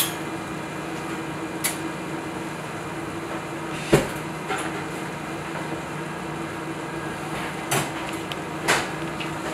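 A few short clinks and taps of a metal spoon against a glass cup and ceramic dishware, about five in all, the loudest about four seconds in, over a steady low hum.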